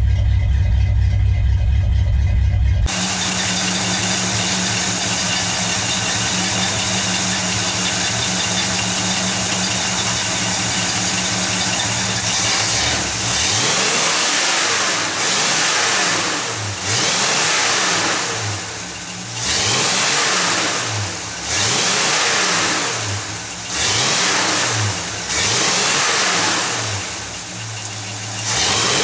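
A 1964 Pontiac GTO's 389 V8 warming up after a cold start. It idles steadily at first, then from about halfway through it is revved in a string of throttle blips, one roughly every two seconds, each rising and falling in pitch.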